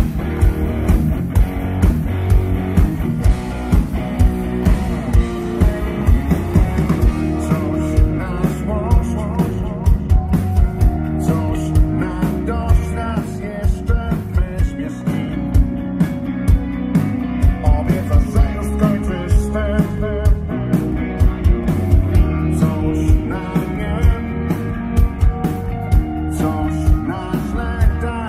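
Live rock band playing loud through the stage PA: electric guitars over a steady drumbeat, with a man singing lead vocals from about eight seconds in.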